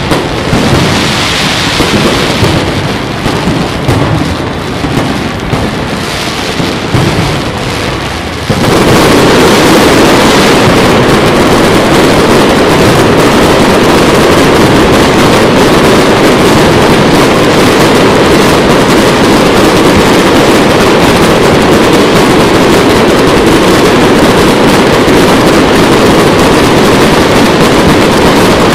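Fireworks display going off overhead: separate bangs rising and falling for the first eight seconds or so, then a sudden change to a loud, steady, dense noise of a continuous barrage.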